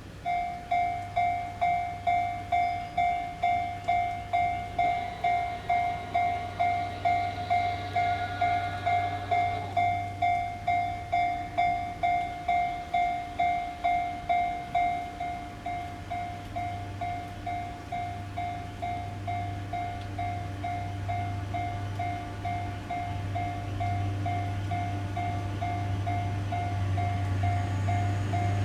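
Japanese level-crossing warning bell ringing, an electronic ding repeating about twice a second that grows softer after about fifteen seconds. Under it, the low drone of a multiple tie tamper's engine grows louder as it approaches near the end.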